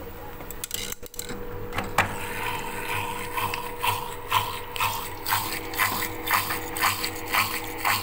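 LG front-loading washing machine running with a steady hum while water gushes and splashes out of its opened drain-filter opening onto the floor. The splashing starts about two seconds in and surges about twice a second.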